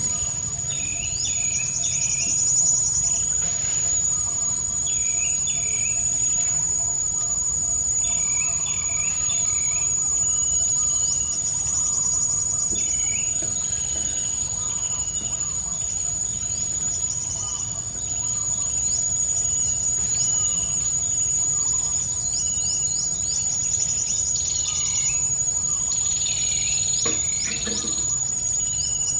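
Steady high-pitched insect drone, with birds chirping in short repeated phrases over it and a low steady background hum.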